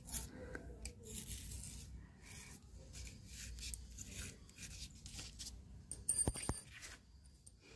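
Pencil scratching faintly as it is drawn around a bangle to trace a circle on a sparkle sheet, with a brief louder rustle about six seconds in.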